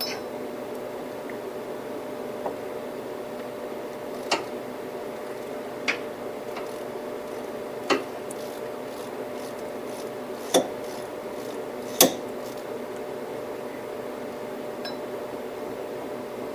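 Hand tools clinking and knocking on metal parts while a power steering pump is being unbolted: about six sharp clinks spread out, the last two the loudest, over a steady hum.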